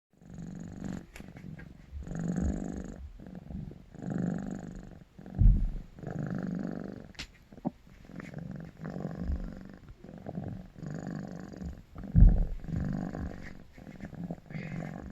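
A young Korean shorthair cat purring, a deep rumble like snoring or a motorbike that swells and fades in regular pulses with its breathing. Two low thumps stand out, about five and twelve seconds in.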